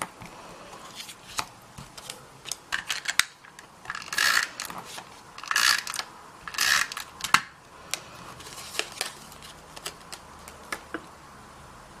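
Snail adhesive tape runner pulled across small cardstock squares: three short rasping zips, about a second apart, a little after the start. Around them, light clicks and taps of card being handled and pressed down.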